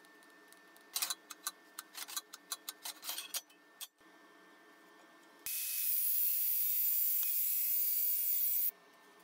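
Angle grinder with a thin cut-off disc slicing through a steel plate clamped in a vise: it starts suddenly, runs steadily with a high hiss for about three seconds and stops abruptly. Before it, a quick irregular run of sharp clicks.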